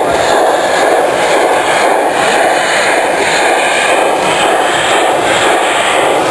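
A large-scale model steam locomotive, a model of narrow-gauge tank engine 99 7222, running on its track past close by, heard as a steady, even running noise without clear chuffs or knocks.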